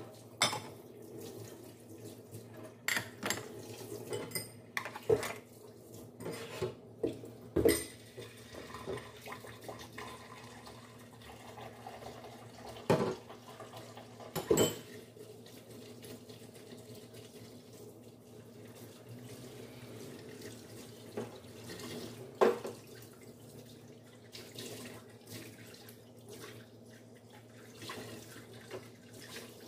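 Kitchen tap running into a sink during hand dishwashing. Several sharp clinks and knocks come from glasses, cups and bowls being handled and set down.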